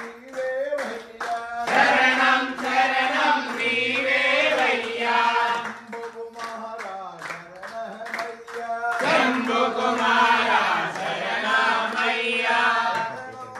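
A group of voices singing a devotional chant together, with sharp claps keeping an even beat.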